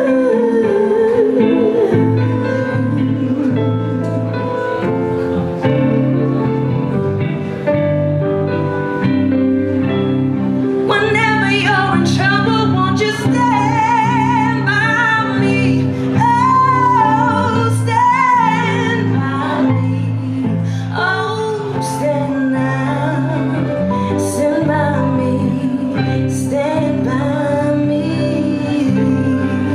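A woman singing lead vocals into a microphone over a live band with drum kit and guitar. Her voice comes forward about a third of the way in, with cymbal crashes over the beat.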